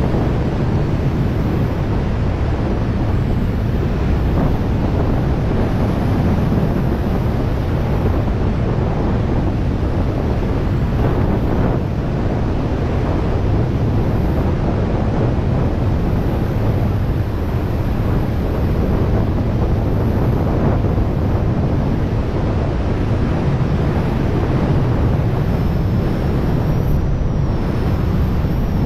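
Loud, steady rush of airflow buffeting the microphone of a camera carried by a wingsuit flyer in flight.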